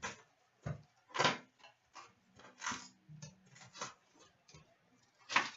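A sealed box of 2017/18 Upper Deck SPx hockey cards being handled and opened by hand: scattered taps, clicks and rustles of cardboard and wrapping, the loudest about a second in and near the end.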